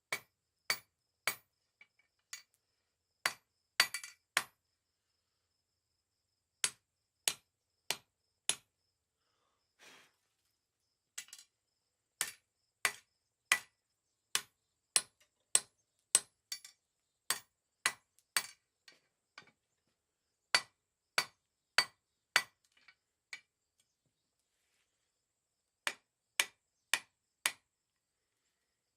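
Blacksmith's hand hammer striking a 1/2 inch mild steel round bar on the anvil during forging: sharp, separate blows at about two a second, in short runs with pauses between and one longer run through the middle.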